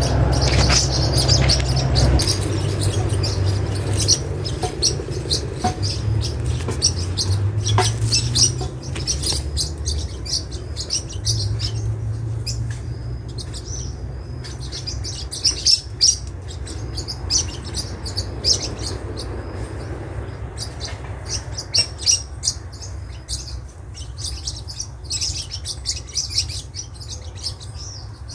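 A flock of maritacas (small green parakeets) chattering with many short, high calls. A low rumble sits underneath and is heaviest in the first two seconds.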